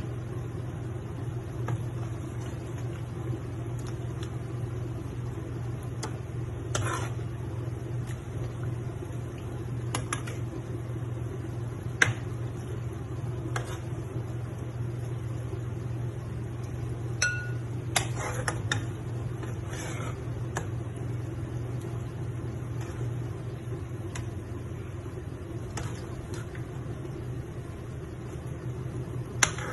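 Metal spatula scraping and clinking against a wok as pieces of chicken adobo in thick sauce are lifted out, with scattered sharp clinks, the loudest about twelve seconds in. A steady low hum runs underneath.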